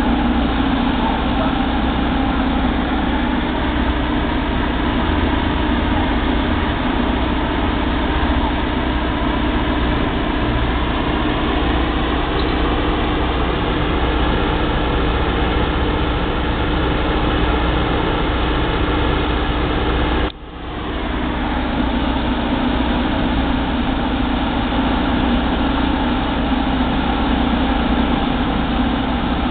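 Utility van's engine idling steadily at the curb while its exhaust pours out visible smoke. The sound drops out abruptly about twenty seconds in and swells back within a second.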